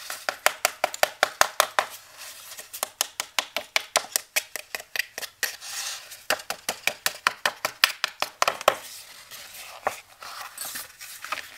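Metal ruler edge scraped in quick repeated strokes along the edges of a heavy cardstock page, several strokes a second, distressing and roughing up the paper edges. The strokes pause briefly now and then and thin out near the end.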